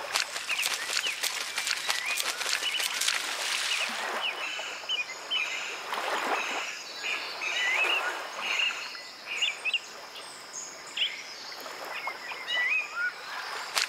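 Marsh ambience: many small birds chirping in short, quick calls over a steady hiss. Bursts of water splashing come in the first few seconds and again around six seconds in, as a cormorant thrashes a fish at the surface.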